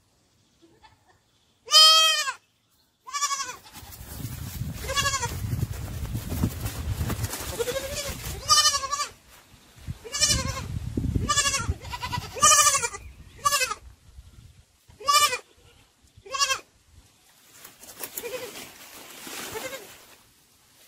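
Sheep and lambs bleating, about ten separate calls with pauses between them. A low rumble runs under the middle stretch.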